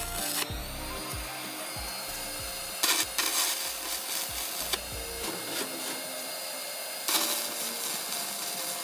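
Arc welding on an old scuba tank, fixing the ring that holds the wind chime's clanger into the tank's neck: a steady crackle of the welding arc, louder for a stretch about three seconds in and again from about seven seconds.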